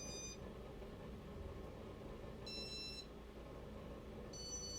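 Three short, high electronic beeps, the first at the very start, the next about two and a half seconds in and the last near the end. Under them runs the low steady hum of the Casablanca Spirit of Saturn ceiling fan's motor, running in reverse on speed three.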